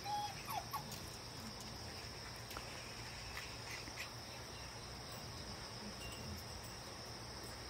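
Steady, high-pitched insect chirring, with a few short puppy whimpers near the start.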